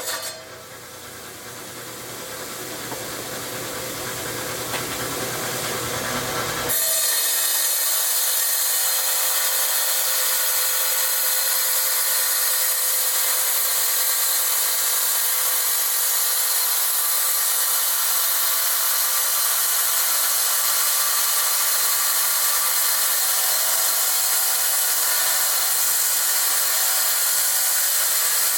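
Tile saw's diamond blade cutting through rock. It is quieter and lower for the first seven seconds, growing steadily louder, then switches abruptly to a loud, steady grinding hiss.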